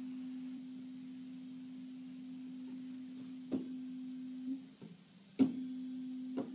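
A pair of physics tuning forks, one with an adjustable weight, ringing together in a steady low tone. They are tuned so close that the beat is very slow. The ring fades about five seconds in, and a fork is struck again with a sharp knock, the loudest sound; lighter knocks come about a second and a half before it and near the end.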